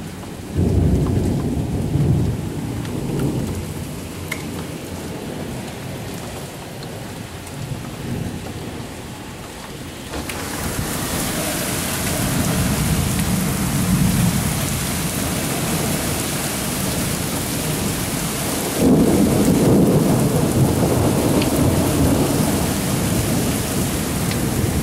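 Thunder from a thunderstorm, a low rumble starting about half a second in. About ten seconds in, rain sets in as a steady hiss, and further rolls of thunder rumble under it, the loudest beginning about three-quarters of the way through.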